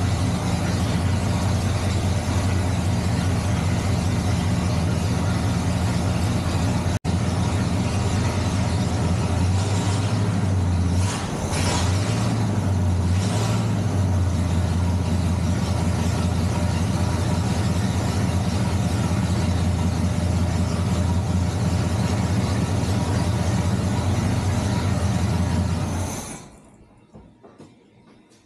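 Chevrolet 350 small-block V8 running steadily in the bare chassis, its engine speed wavering briefly a few times around ten to fourteen seconds in, then shut off near the end, the sound stopping abruptly.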